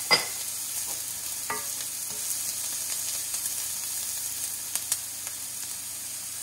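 Diced onion, celery and shredded carrot sizzling in hot vegetable oil in a nonstick frying pan while being stirred with a wooden spoon, a steady hiss. A few sharp clicks stand out, with a short ringing clink just after the start and two quick clicks about five seconds in.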